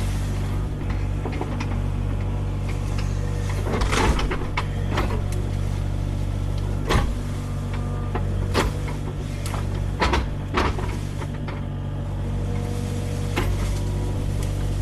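Kubota KX057 mini excavator's diesel engine running steadily, with several sharp knocks and clunks over it as the machine works the fallen tree.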